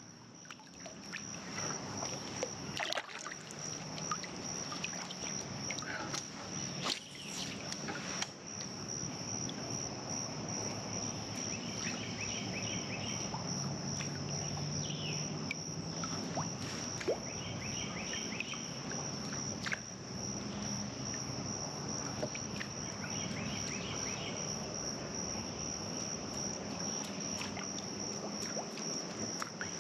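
Outdoor river ambience: a steady, high-pitched insect chirring throughout, with water sounds and scattered small clicks.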